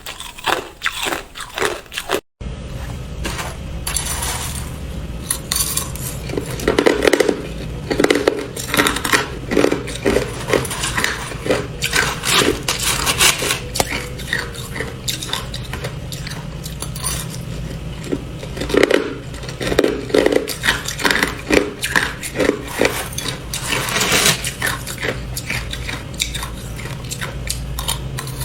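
Hard clear ice crunching under the teeth for the first two seconds. After a short break, pieces of ice clink and rattle against a hard dish over a steady low hum.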